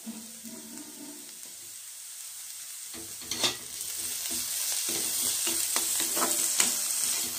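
Chopped onions, green chillies and freshly added curry leaves sizzling in hot oil in a kadai, while a spatula stirs and scrapes against the pan. The sizzle is faint for about the first three seconds, then grows louder, with repeated scrapes of the spatula.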